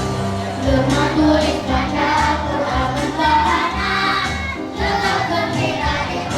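Children's choir singing a sholawat, an Islamic devotional song in praise of the Prophet, over musical accompaniment with steady low notes.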